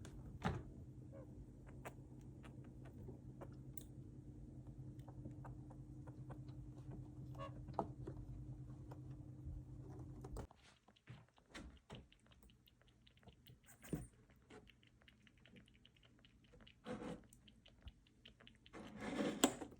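Pet bush babies making small clicks, taps and chewing sounds as they eat and move about. A steady low electrical hum underneath cuts off about halfway through, and a brief louder rustling burst comes near the end.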